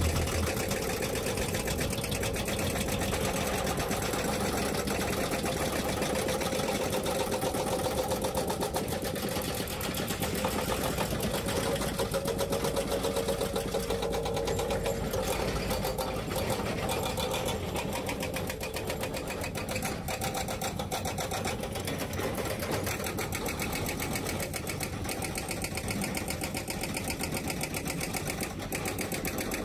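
Excavator-mounted hydraulic rock breakers hammering rock in a rapid, steady stream of blows, with the excavators' diesel engines running underneath.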